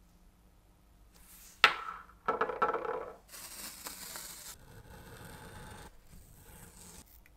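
A small nickel-plated toy locomotive wheel set down with a sharp clink about one and a half seconds in, followed by a brief metallic clinking of the wheels. Then masking tape is pulled off its roll with about a second of tearing hiss, and pressed and rubbed down with quieter rustling.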